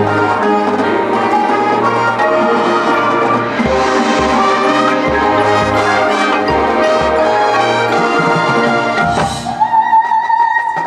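High school marching band playing, with brass carrying the melody over a pulsing low drum line. There are cymbal crashes about a third of the way in and again near the end, where the band settles onto one held note.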